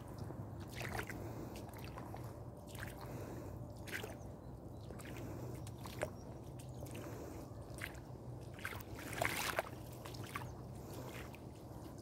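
Footsteps of boots squelching through mud and shallow puddles, roughly one step a second, with a louder wet squelch about nine seconds in.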